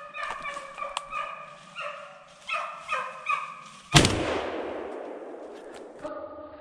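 Deer hounds baying on a running deer, then a single loud gunshot about four seconds in that rings out and fades over the next two seconds: the shot that downs the deer.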